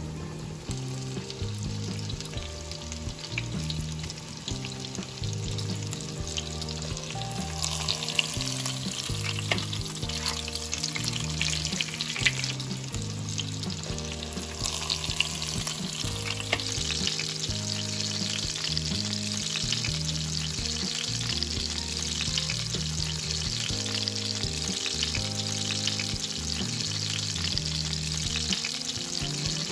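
Breaded chicken fillet shallow-frying in vegetable oil, sizzling and crackling. The sizzle picks up about seven seconds in and grows stronger midway, over soft background music.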